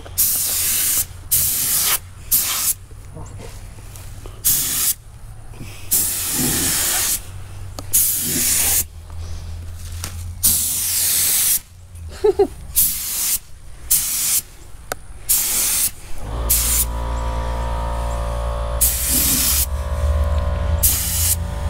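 Air-powered automotive paint spray gun hissing in a string of short trigger pulls, each a fraction of a second to about a second long, as orange colour goes onto the car. About three-quarters of the way in, a steady low machine hum starts up beneath it.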